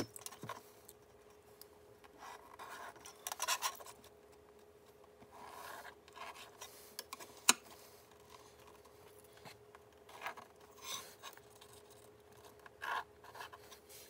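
Pen scratching on drywall as lines are drawn along a steel ruler, in several short strokes, with one sharp click about halfway through.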